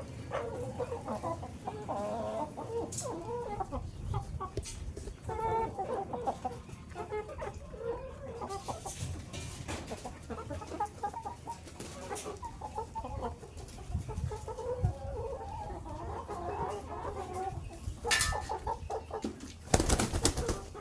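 A flock of chickens clucking continuously, many short calls overlapping. Near the end there are two brief, louder noisy bursts.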